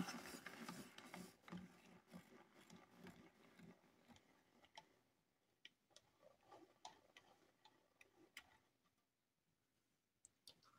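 Deli NU Sign rotary pencil sharpener: the last faint turns of the crank die away in the first second or so. Then come scattered soft clicks and ticks as the pencil is drawn out of the sharpener's front and handled. All of it is faint.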